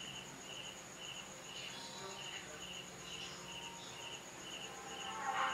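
Crickets chirping in the background, an even pulse about twice a second over a steady higher trill. Faint music from the amplifier begins near the end.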